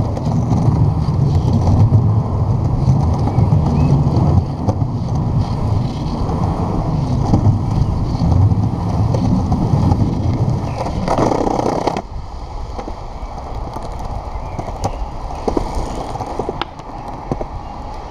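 Cruiser skateboard wheels rolling over concrete, picked up close by a camera on the board: a steady, loud, grainy rumble. About eleven seconds in there is a brief louder rush. Then, a second later, the rumble drops suddenly to a quieter roll with scattered clicks from bumps in the surface.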